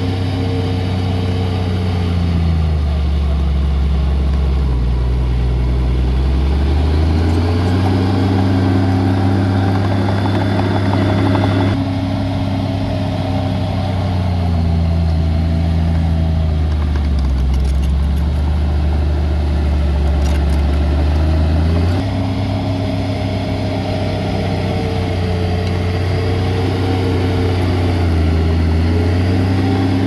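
Diesel engine of a heavy earthmoving machine running hard, its revs sagging and climbing again every few seconds as it works. The engine note changes abruptly twice.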